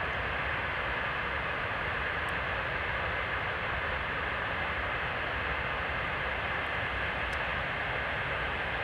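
Avro Vulcan's Rolls-Royce Olympus turbojet engines running on the ground during an engine test: an even, unbroken jet roar with a strong hissing band in the upper middle and a low rumble beneath.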